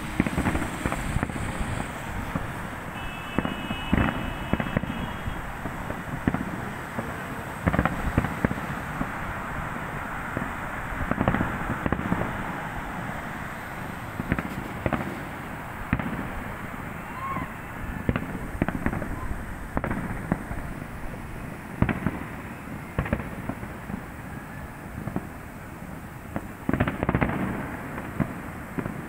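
Fireworks display going off: a continuous crackle with irregular bangs, several louder booms among them.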